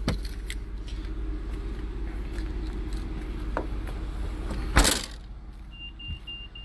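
Rear liftgate of a Mitsubishi Outlander SE being shut, closing with one loud thump nearly five seconds in over a steady low hum. Four short high beeps follow near the end.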